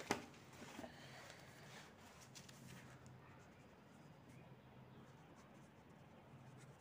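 Faint pen strokes scratching on ruled notebook paper, after a short rustle of paper being handled at the start.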